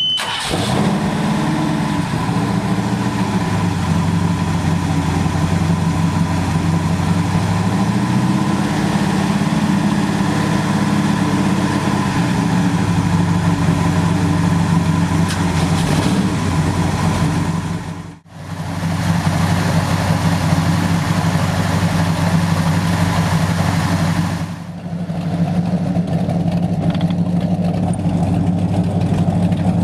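Wellcraft Scarab 38KV speedboat's inboard engines running steadily at low revs, the pitch lifting briefly about a third of the way in and settling back. The sound breaks off abruptly for a moment about two thirds through, then carries on the same.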